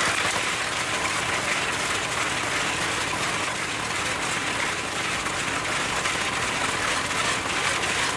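Small drum concrete mixer driven by a petrol engine, running steadily as its drum turns and tumbles a dry mix of sand and gravel.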